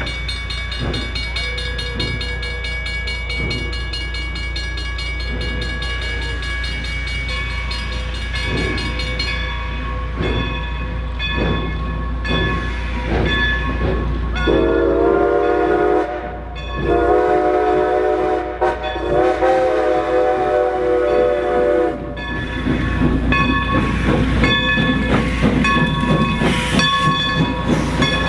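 Baldwin 2-8-0 steam locomotive working past with regular exhaust chuffs and a high, steady hiss for the first few seconds. From about halfway it sounds its steam whistle in a series of blasts, mostly long. Near the end the passenger coaches roll past.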